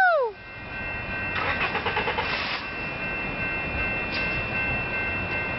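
Caltrain express passenger train approaching and running by, a steady rumble with several steady high ringing tones held over it.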